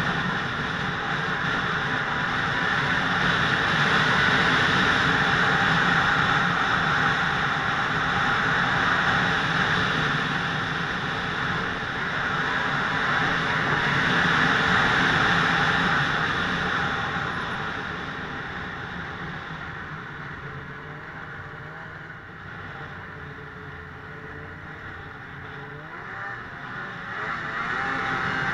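Snowmobile running along a packed snow trail, its engine and track making a steady loud noise. It eases off for several seconds past the middle and picks up again near the end.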